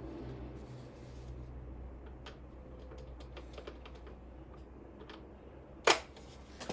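Scattered light metal clicks and taps of nuts being fitted by hand onto the upper knuckle bolts, with one sharper click near the end, over a low steady hum.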